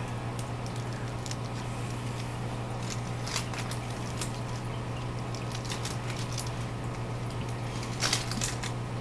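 Self-fusing tape being stretched and wrapped around a plastic pipe joint, with its cellophane backing peeled away: faint scattered crackles and clicks, a few louder ones about eight seconds in, over a steady low hum.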